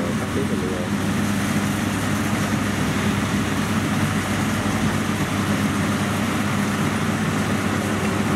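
Rice combine harvester running steadily as it cuts and threshes a standing rice crop: an even engine drone with a constant low hum under a wide mechanical noise.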